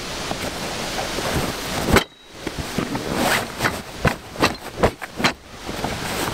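Wind noise on the microphone for about two seconds. After that comes a run of short rustles and scuffs as the canvas stuff sack of an old canvas tent is handled and pulled open.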